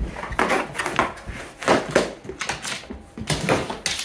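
A dog playing with a latex balloon: irregular clicking and scuffing of its claws and paws on the floor, mixed with taps of the balloon.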